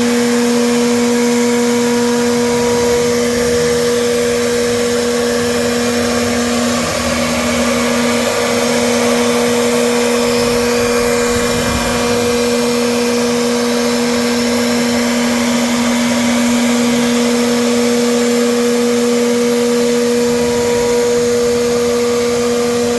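CNC machine running steadily: a constant motor hum with a higher tone above it and an even hiss, unchanging throughout.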